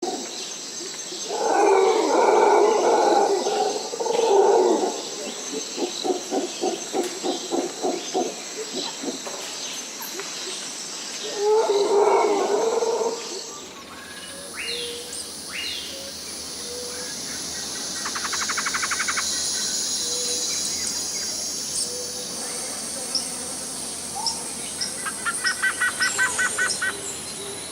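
Jungle ambience: a steady high-pitched insect drone with loud animal calls and bird chirps over it, including a run of rhythmic pulsed calls. About halfway through, the background changes abruptly to a different insect chorus, with fast bird trills and a quick pulsed series near the end.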